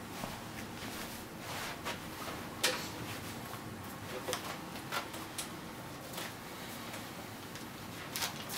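Scattered handling noises of a person moving about and settling in front of the camera: light rustling with a sharp click about two and a half seconds in, a few more clicks through the middle and a quick pair near the end.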